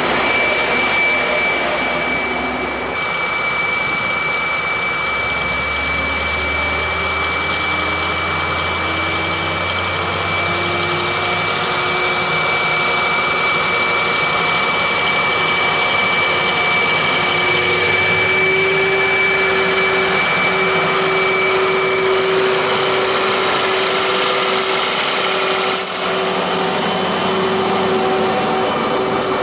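Diesel engine of a GB Railfreight Class 73/9 electro-diesel locomotive running loudly as the test train draws slowly past, with a steady high whine. The engine note climbs in pitch from about five seconds in, then holds steady.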